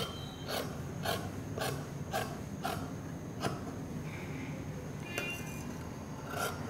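Tailoring scissors cutting through doubled blouse fabric, a snip about every half second. The snipping pauses about halfway, then a few more snips come near the end.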